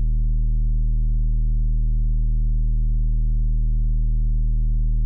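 A single low synthesizer bass note held steadily with no drums under it, closing out an instrumental hip-hop beat.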